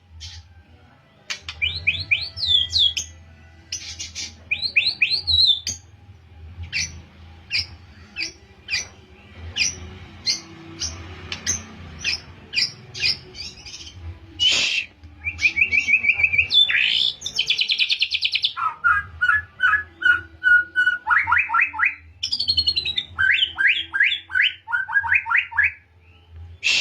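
Young male white-rumped shama singing: varied phrases of sharp separate notes, fast rattling trills and whistled runs, including the canary-style rapid trills ('tembakan kenari') it is learning to copy. A faint steady low hum lies underneath.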